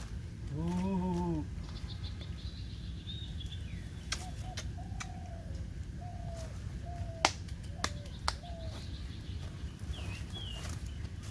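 Bird and animal calls over a steady low background: a short, low call about a second in, then a series of short chirping calls, with a few sharp clicks around the middle.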